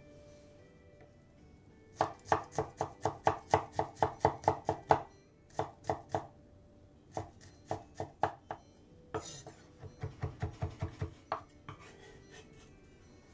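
Chef's knife mincing garlic on a bamboo cutting board: a quick run of knife strikes, about four or five a second, then slower single chops, then another quick run.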